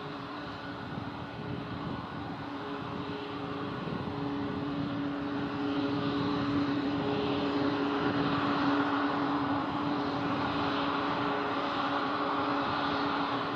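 Airbus A320-232 on final approach: the drone of its two IAE V2500 turbofan engines, with a few steady humming tones, growing louder from about four seconds in as the jet comes closer.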